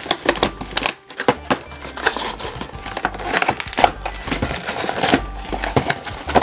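Toy packaging being opened and handled: dense, irregular crinkling and crackling.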